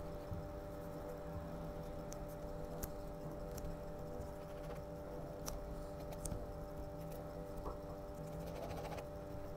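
Ballpoint pen scratching across paper as it draws long strokes, with a few small clicks, over a steady hum; the recording is slightly sped up.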